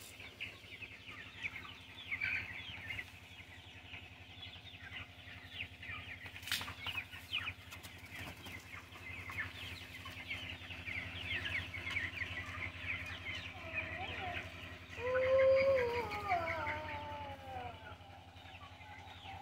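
Young chickens, about six weeks old, peeping and cheeping continuously in short high notes. A few seconds before the end comes a louder, lower, drawn-out call that slides down in pitch.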